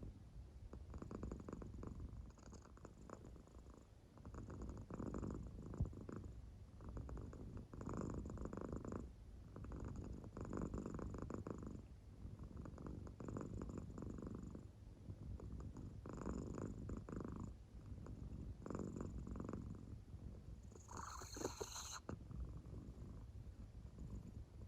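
An American Shorthair cat purring softly in deep sleep, the purr swelling with each breath about every two to three seconds. A brief sharper noise comes a little after 21 seconds.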